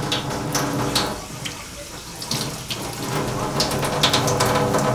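Kitchen tap running in a thin stream into a stainless steel sink, with irregular splashes as hands rinse and clean a piece of meat under the water.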